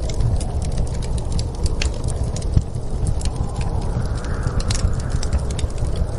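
Fireplace crackling with irregular sharp pops over a steady low rumble of snowstorm wind. A gust swells briefly about four seconds in.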